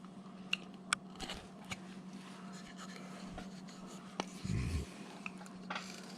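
Hand carving tool cutting and paring wood: faint, irregular short scrapes and clicks, over a steady low hum.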